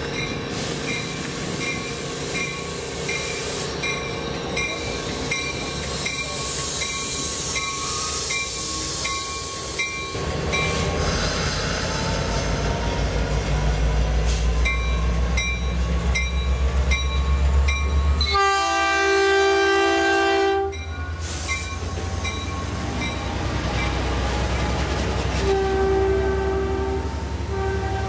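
Grade-crossing bells dinging steadily; about ten seconds in, a Metrolink diesel locomotive throttles up with a deep engine rumble and a slowly rising whine as the train departs. It then sounds its multi-tone horn in one blast of about two seconds, and the train rolls past close by with softer steady tones near the end.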